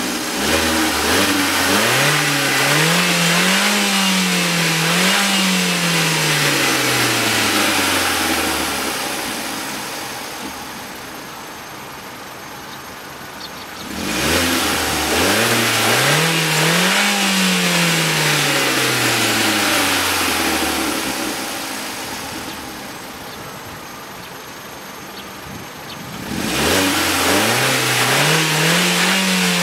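2008 Opel Corsa engine heard at the exhaust, revved up from idle and let drop back three times. Each rev climbs over about three seconds and falls back to idle. The third is still climbing near the end.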